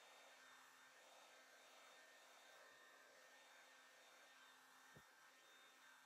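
Near silence: a faint steady hiss with a low hum, and a single soft click about five seconds in.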